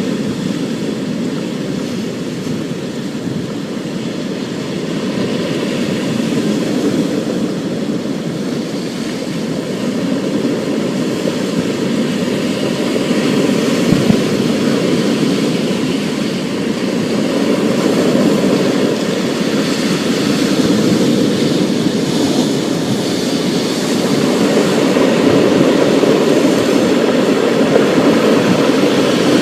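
Thunderstorm ambience: a continuous low rumble with a steady hiss above it, slowly swelling louder.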